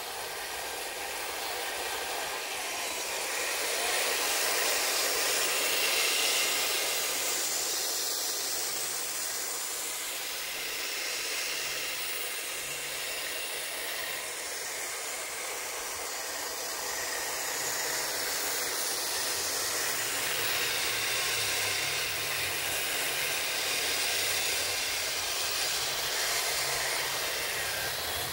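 Radio-controlled model M41 Bulldog tank driving on grass: a steady whir of its electric drive motors, gearboxes and tracks that swells and fades as it moves nearer and farther.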